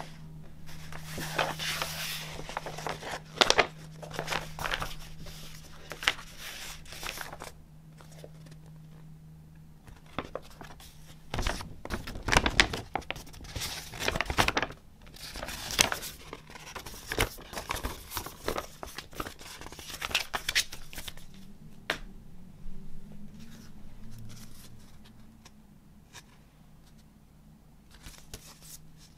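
Hands rustling and crinkling a large folded paper poster as it is unfolded and handled, in irregular bursts with short pauses, then handling a paper envelope.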